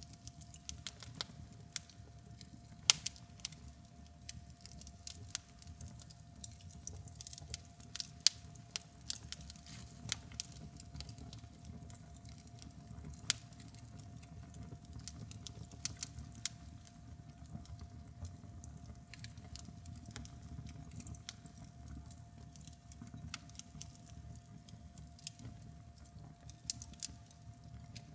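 Fire and hot slag crackling: irregular sharp pops and ticks, a few much louder than the rest, over a low steady rumble, with a faint steady tone underneath.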